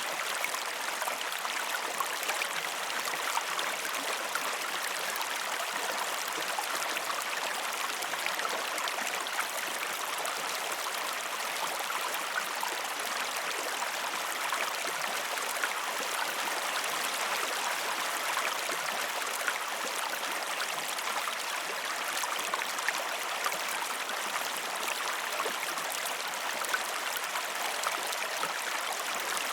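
River water flowing over rocks, a steady rushing with small splashes and trickles.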